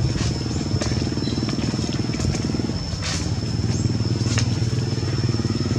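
A small engine running steadily, with a thin high-pitched tone held above it and scattered light clicks.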